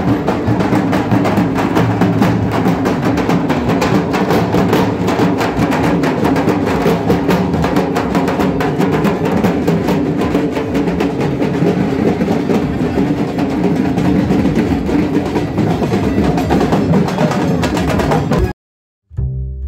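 Dhak drums, the large Bengali barrel drums, beaten with thin sticks in a fast, dense, continuous rhythm. The drumming cuts off suddenly near the end, and after a brief silence other music with bowed strings begins.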